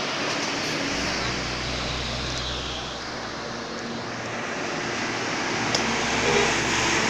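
Roadside traffic noise: the rush of a passing heavy vehicle, with a low engine drone for a couple of seconds about a second in.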